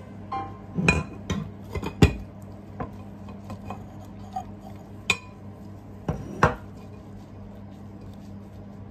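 Porcelain plate and bowl clinking and knocking together as a plate is laid over a bowl, the pair turned over and the bowl lifted off: scattered sharp clinks, the loudest about two seconds in.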